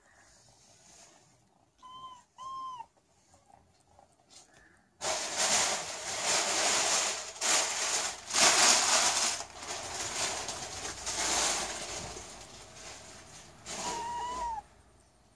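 A kitten mews twice, short and high, then once more near the end in a longer mew that falls away. In between, several seconds of rough rustling noise.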